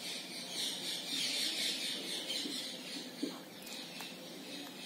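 Marker pen squeaking and scraping across a whiteboard while underlining a heading and drawing an arrow: a long scratchy stroke over the first few seconds, then fainter short strokes.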